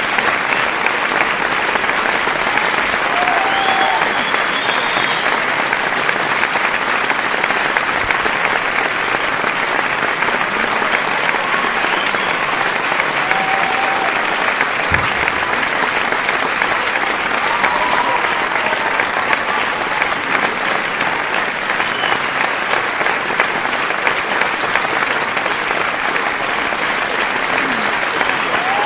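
Crowd applause: many hands clapping in a dense, steady, continuous patter that holds at the same level.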